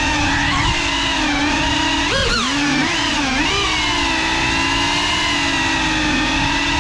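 Brushless motors and propellers of a GEPRC FPV quadcopter whining as it flies, heard close up from its own mounted camera. The pitch holds fairly steady, with a few quick rises and falls as the throttle is blipped a couple of seconds in.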